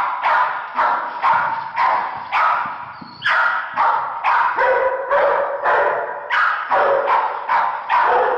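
A dog barking over and over, about two to three barks a second with a short break about three seconds in, each bark echoing in a large hall.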